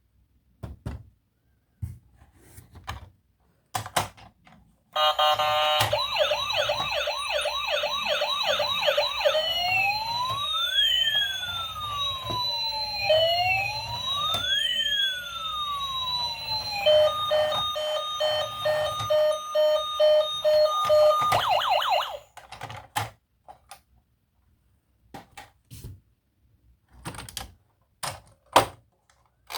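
A toy emergency vehicle's battery-powered electronic siren, sounding through a small speaker. It cycles from a fast warbling yelp to a slow rising-and-falling wail, then to a steady tone. Before and after it come scattered light clicks and knocks of plastic toy handling.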